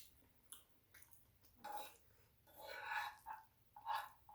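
Faint, wet mouth sounds of chewing food, in a few short soft spells with small clicks.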